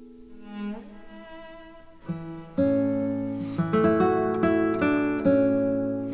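Background music: plucked acoustic guitar or ukulele notes, soft at first and growing fuller and louder about two and a half seconds in.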